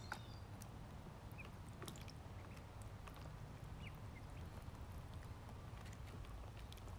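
Ducklings peeping now and then, short high cheeps scattered through, with light ticks and taps of bills pecking, over a steady low hum.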